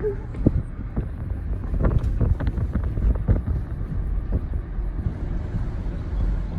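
Low rumble of a moving car with wind noise, broken by a run of short knocks and bumps about two to three and a half seconds in.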